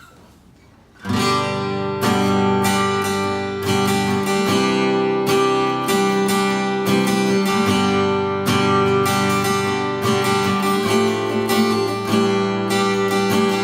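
Tanglewood TW28 CSN cutaway dreadnought acoustic guitar, with a solid cedar top and mahogany back and sides, playing a riff of strummed chords that starts about a second in.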